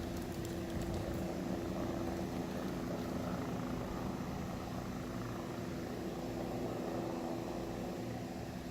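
Helicopter flying over the area, heard as a steady drone with a low hum.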